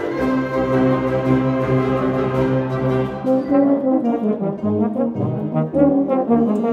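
A live brass ensemble, a euphonium among the parts, plays sustained chords. About three and a half seconds in, the music moves into shorter, changing notes.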